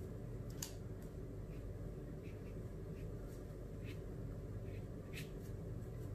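Faint scattered clicks and light taps of a paintbrush working on paper and against a plastic palette, about a dozen over a few seconds, over a low steady hum.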